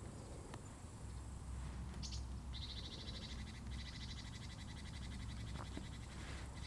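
A small animal's high, rapid trill starts about two and a half seconds in, breaks off briefly and resumes, after a short chirp just before it.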